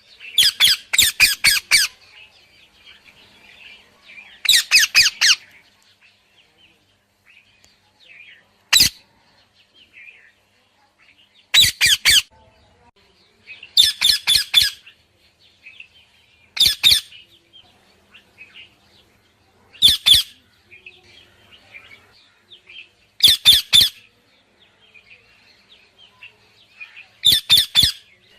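A parrot making bursts of rapid, sharp, clicking sounds, each burst lasting up to about a second and recurring every few seconds, with soft chirps in between.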